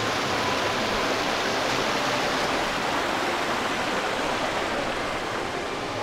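Water splashing steadily in a garden fountain.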